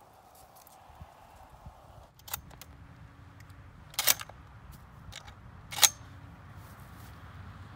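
Several sharp metallic clicks and clacks from a shotgun's action being handled, with a quick double click about midway and another a couple of seconds later.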